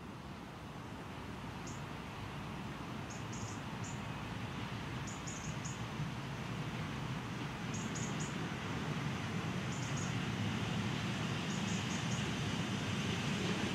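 7¼ inch gauge Rio Grande 2-6-0 steam locomotive and its train approaching along the track, a rumble growing steadily louder. Small birds chirp in short clusters over it.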